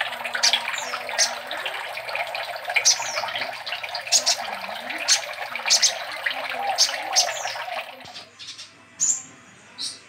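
Caged copper-throated sunbird (kolibri ninja) singing a run of sharp, high chirps and short down-slurred notes, over a steady water-like hiss that drops away about eight seconds in, after which a few more chirps follow.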